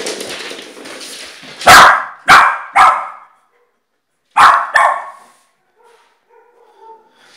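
West Highland White Terrier barking: three sharp barks in quick succession about two seconds in, then two more a couple of seconds later.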